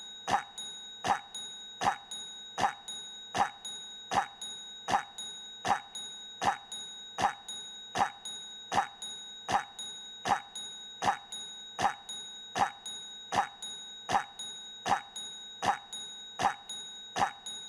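A single cough sound effect looped over and over, identical coughs repeating evenly about every three-quarters of a second, with a steady high whine underneath.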